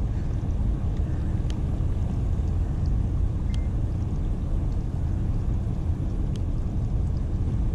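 A steady low rumble with a few faint ticks over it.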